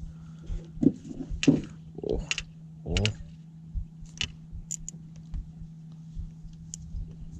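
Baitcasting reel being cranked to bring in a fish, with scattered clicks and knocks of hands on the reel and gear. A steady low hum runs underneath, and a few short voice sounds come between about one and a half and three seconds in.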